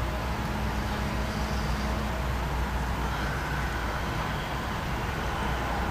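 Steady low hum with a faint hiss: continuous background noise with no distinct events.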